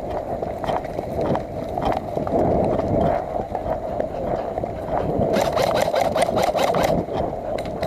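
An airsoft player on the move, with a steady rushing noise and scattered knocks from movement and gear. A burst of rapid, evenly spaced clicking comes between about five and seven seconds in.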